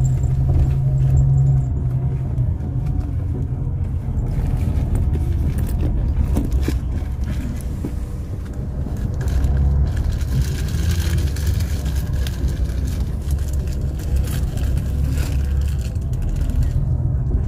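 Low, steady rumble of a bus engine heard from inside the bus as it creeps through heavy city traffic, with a steady hum in the first second or two and a louder stretch of engine and road noise about ten seconds in.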